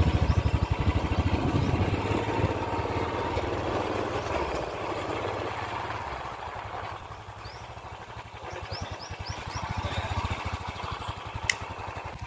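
A motor scooter's small engine running as it rides slowly along, with a steady engine pulse. The engine eases off about halfway and picks up again near the end.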